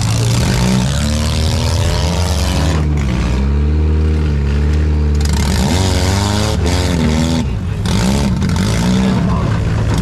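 Four-cylinder demolition derby car engines running hard together, revving up and down over a steady low engine drone.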